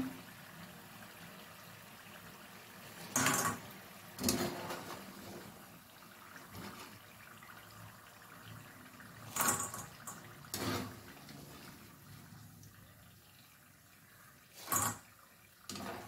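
Oil sizzling steadily as kaliyadakka rice-flour balls deep-fry in a kadai, broken by six short clatters in three pairs as a wire skimmer scoops the fried balls out.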